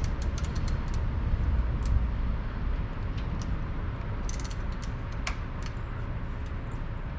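Metal hand tools clicking and clinking irregularly while working at a rounded-off wheel-spacer bolt, in two flurries: one at the start and one about four to five seconds in. A steady low rumble runs underneath.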